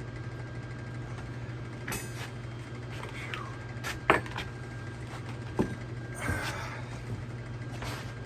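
A few sharp clanks and knocks, as of metal parts being handled, over a steady low hum. The loudest knock comes about four seconds in.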